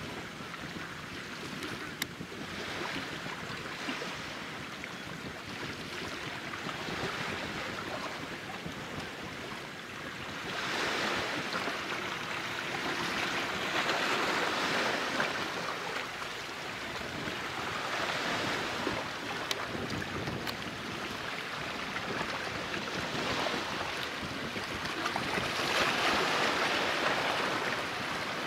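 Small waves washing onto the shore, the wash swelling and falling back every few seconds.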